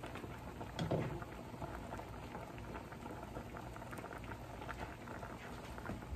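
Pot of crabs boiling hard with the lid off: steady bubbling with many small, irregular pops, and a brief thump about a second in.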